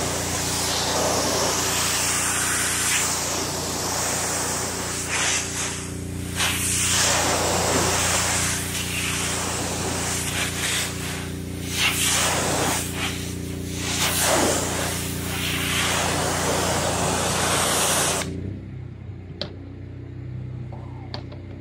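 Water spraying from a cleaning wand onto solar panels: a steady hiss that swells and eases as the spray sweeps across the glass, over a steady machine hum. The spray cuts off suddenly about eighteen seconds in, leaving the hum and a couple of faint clicks.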